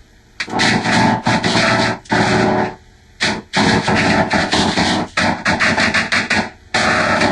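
Fisher-Price Laugh & Learn Love to Play Puppy toy's voice and jingles, many copies stacked and run through heavy audio effects into a harsh, choppy, distorted din that cuts in and out every fraction of a second.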